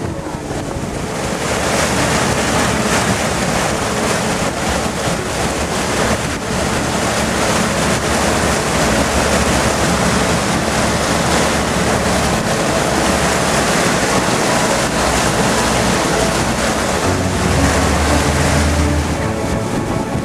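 A motorboat's wake churning and splashing, with wind buffeting the microphone and the towing boat's engine running underneath, all steady. This is a boat under way, towing at speed.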